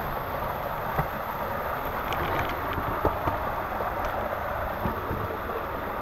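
Steady rushing noise of falling water from a gorge waterfall, with a few faint knocks.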